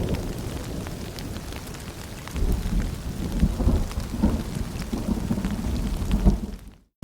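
Rain falling with a low rumble of thunder and scattered drips. The rumble eases, swells again after a couple of seconds, then cuts out to silence for a moment near the end.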